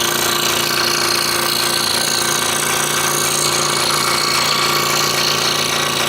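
Scroll saw running steadily, its blade cutting a wooden jigsaw puzzle piece.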